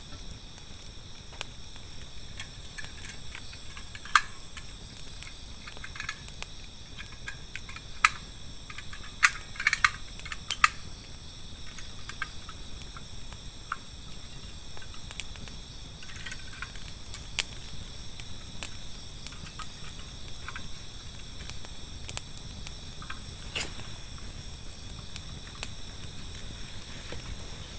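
Crickets chirring steadily at night in several high, even tones. Scattered sharp clicks and knocks sound over them, a few close together about nine to eleven seconds in.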